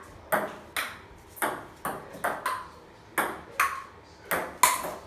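A table tennis rally: a celluloid ping-pong ball ticking back and forth off paddles and a wooden dining-table top. There are about ten sharp clicks, roughly two a second.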